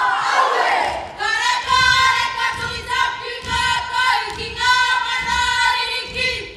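Shouting and cheering that dies away in the first second, then a group of young women singing a Pacific Islander song together, with regular low thumps in time with the song.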